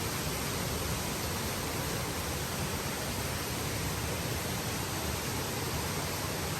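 Steady rushing of a waterfall on a jungle river, an even unbroken hiss with no change in level.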